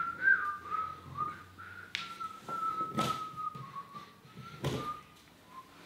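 A person whistling a wandering tune, with a few knocks or taps.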